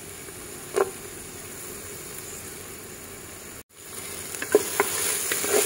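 Garlic, ginger and sliced red onion sizzling in hot olive oil in a pressure cooker pot, with a single knock about a second in. After a brief cut-out about two-thirds through, the sizzling comes back louder with a wooden spatula clicking and scraping against the pot as the aromatics are stirred.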